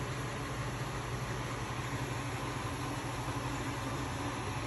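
Steady machine noise: an even fan-like whoosh over a low hum, unchanging throughout.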